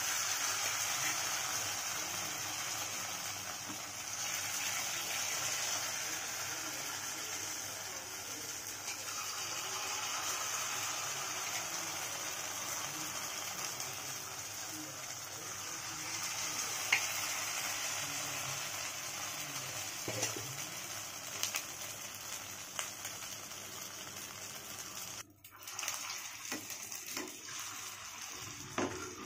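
Batter-coated potato-and-carrot balls deep-frying in hot oil in a kadai: a steady sizzle, with a few faint crackles, that drops out briefly near the end.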